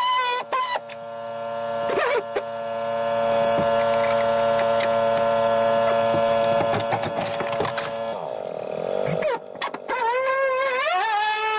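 Air-powered oscillating glass cutter running with a steady whine as it cuts the glue holding a truck's back window. A little after eight seconds it winds down and stops briefly, then starts again with its pitch wavering.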